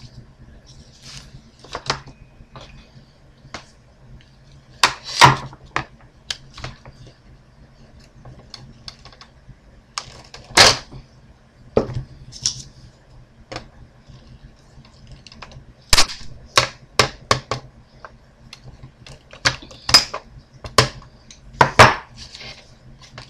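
Irregular sharp clicks, snaps and clatters as a computer motherboard is handled and a small aluminium heatsink is worked off it, its plastic fasteners being cut away.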